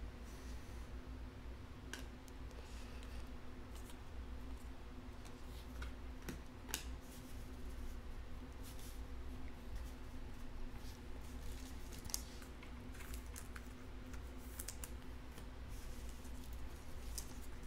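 Faint, scattered clicks and snips of trading-card packs and cards being handled at a table, over a steady low hum.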